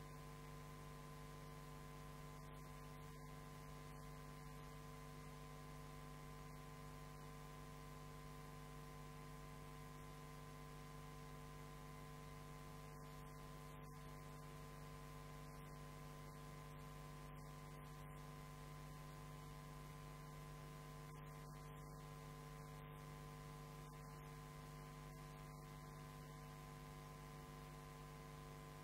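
Near silence with a steady electrical hum made of several fixed tones.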